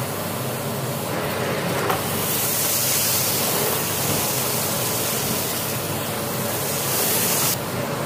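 Philips PowerPro Compact (FC9331/09) bagless canister vacuum cleaner running on a carpet with a steady rushing hiss of air. The hiss grows louder and brighter about two seconds in and falls back shortly before the end, with a single click near the start of the louder part.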